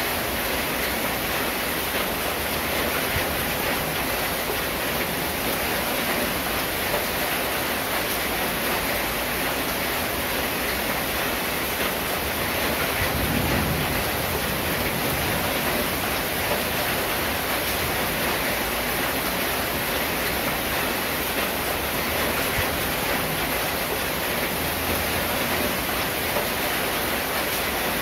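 Steady rain pattering on a corrugated zinc roof, an even hiss. About halfway through a brief low rumble swells under it for about a second.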